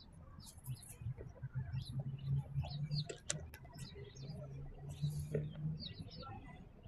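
Birds chirping in many short, high calls over a low steady hum.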